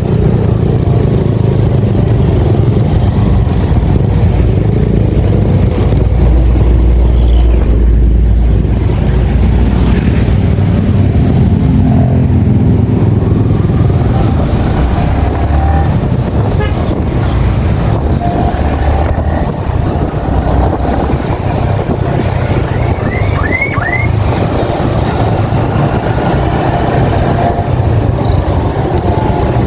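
Yamaha XSR155's 155 cc single-cylinder engine running under way, with steady road and wind rumble. Three brief high chirps come about three quarters of the way through.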